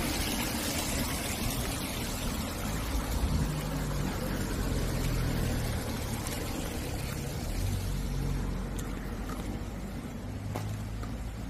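Steady outdoor background noise: a low rumble under a wide, even hiss, with no distinct events.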